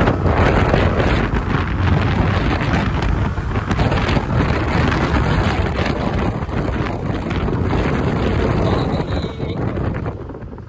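TVS Ntorq 125 scooter ridden at speed: wind rushing over the microphone on top of the running engine and road noise. The rush eases near the end as the scooter slows.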